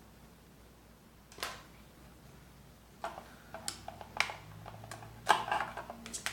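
Small plastic parts being handled: a sharp click about a second and a half in, then a run of irregular clicks and rustles from about halfway, loudest near the end. These are the sounds of adhesive tubes being pulled out of a plastic packaging tray.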